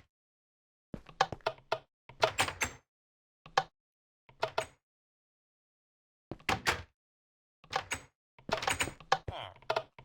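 A series of sharp clicks and knocks, coming in about eight short irregular clusters with silence between them.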